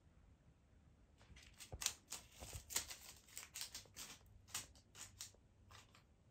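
Faint, irregular scratching and rustling: a quick series of small dry scrapes and clicks that starts about a second in and goes on almost to the end.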